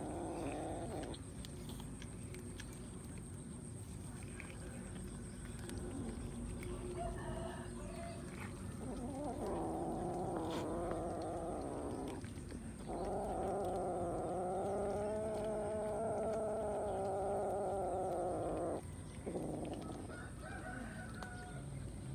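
A cat's low, drawn-out growling yowl, heard twice: a call of about three seconds roughly nine seconds in, then a longer one of about six seconds. It is the warning of a cat guarding food from the others crowding the bowl.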